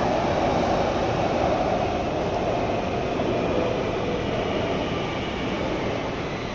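Kaohsiung Metro train running through a tunnel, heard from inside the car: a steady rumble and rush of wheels on rail and air, getting a little quieter toward the end.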